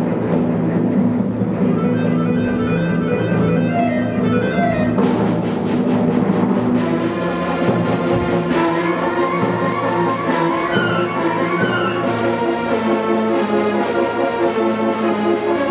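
Orchestral ballet music with brass and timpani. A brighter, fuller passage comes in about five seconds in.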